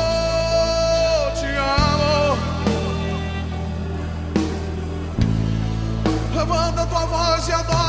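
Slow gospel worship music with no words: long held bass notes changing every few seconds under a wavering melody line.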